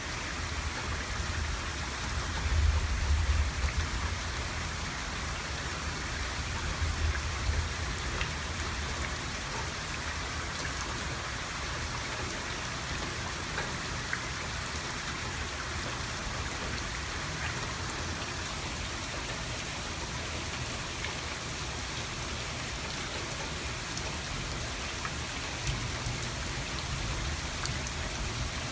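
Steady rain falling during a thunderstorm, an even hiss of drops on surfaces. Brief low rumbles swell a few seconds in and again around seven seconds in, with a fainter one near the end.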